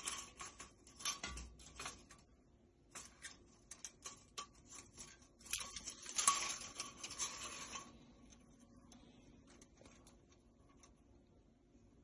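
Horizontal window-blind slats rattling and clicking as they are pushed and lifted, in bursts that are loudest about six seconds in and stop about eight seconds in.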